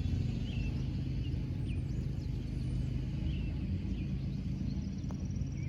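Outdoor ambience: small birds chirping over and over above a steady low rumble, with a fast, high, even ticking like an insect starting near the end.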